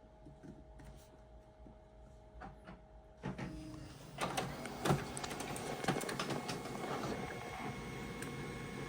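HP Color LaserJet Pro MFP M4301fdw laser printer starting a print job. After about three seconds of near-quiet, it starts up about three seconds in with a run of clicks and clunks, then settles into a steady mechanical whir.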